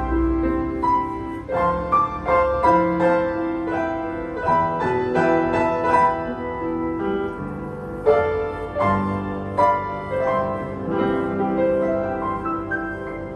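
Yamaha U1G upright piano being played: a melody of struck notes over sustained chords and bass notes, with a sharp accented note about eight seconds in.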